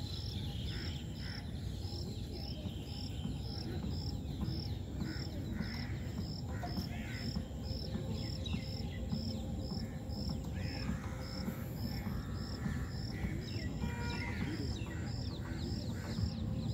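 An insect chirping in an even rhythm, about two and a half chirps a second, with scattered bird calls over a steady low rumble.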